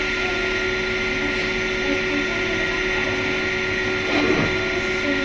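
Steady mechanical drone of a motor or machine running, holding several steady tones at an even level.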